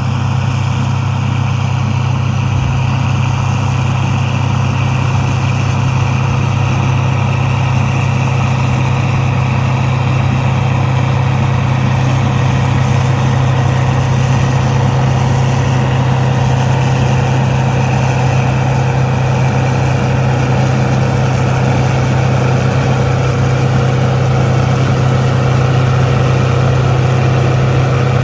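Engine of a heavy farm machine running steadily, a deep low drone with no change in pace.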